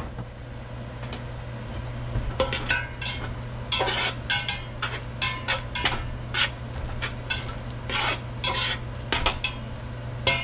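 A slotted metal spatula stirring and scraping onions and herbs in butter around a stainless steel stockpot, in quick irregular strokes of about two or three a second that start about two seconds in. A steady low hum runs underneath.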